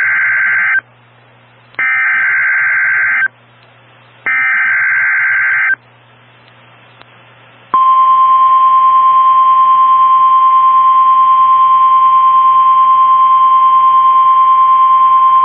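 Emergency Alert System data bursts on NOAA Weather Radio: the SAME header is sent as three short bursts of shrill digital buzzing, each about a second long, with faint radio hiss between them. About eight seconds in, the single-pitch 1050 Hz weather radio warning alarm tone starts and holds steady, the signal that an alert message follows.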